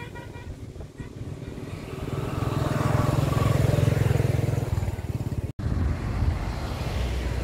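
Motor vehicle engine going past close by, a low rumble that builds to its loudest about four seconds in and then fades. About five and a half seconds in, the sound drops out for a split second.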